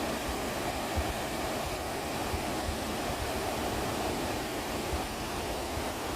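Steady outdoor rushing noise of wind, with short low thuds of wind buffeting the microphone scattered through.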